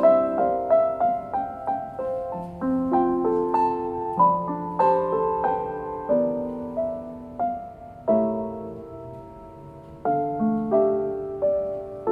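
Piano music: a gentle melody over chords, each note struck and then dying away, with a held chord fading out about two-thirds through before the playing picks up again.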